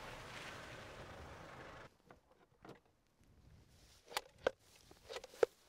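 A steady rushing noise that cuts off about two seconds in. Near the end come several sharp clacks as a rising plate meter is plonked down into the pasture to measure grass height.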